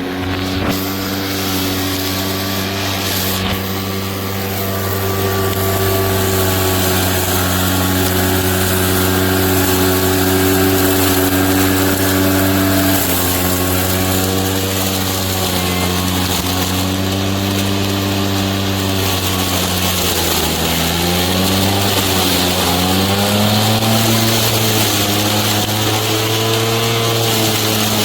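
Lawn mower running steadily with a pitched motor-and-blade hum; about 20 seconds in the pitch dips and then rises and settles a little higher.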